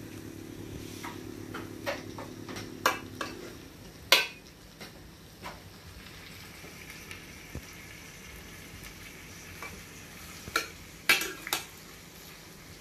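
Serving spoon knocking and scraping against a dish as food is spooned out, with scattered sharp clinks, the loudest about four seconds in and a cluster near the end. A low steady hum cuts out a few seconds in.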